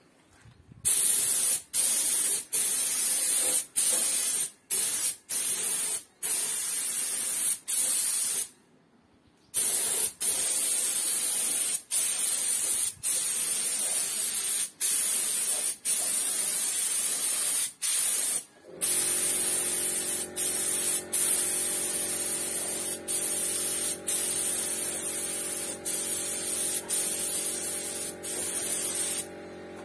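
Compressed-air gun hissing in long bursts, broken by many short trigger releases. About two-thirds of the way through, an air compressor's motor starts and runs with a steady hum under the hiss.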